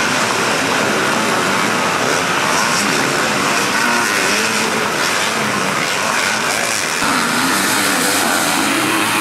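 Several motocross motorcycles revving hard together, their engine notes rising and falling as they accelerate through the ruts. The sound changes abruptly about seven seconds in.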